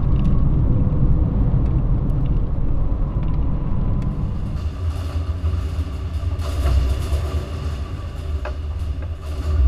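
Steady low rumble of engine and road noise heard inside a car's cabin. About four seconds in the sound changes abruptly to a deeper, steadier rumble with more hiss over it.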